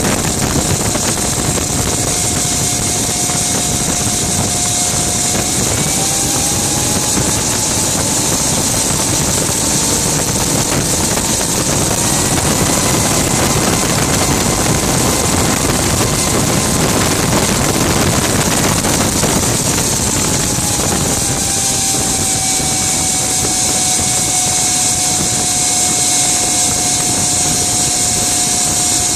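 Gas turbine engine of a Rover Jet 1 recreation running under way: a high whine that rises in pitch a few seconds in, holds, then falls back about two-thirds through, over a strong steady hiss.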